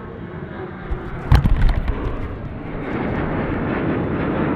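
Jet noise from a Boeing 737-700's CFM56-7B turbofans as the airliner climbs out after takeoff, a broad rush that grows louder from about three seconds in. A brief burst of low thumps comes about a second and a half in.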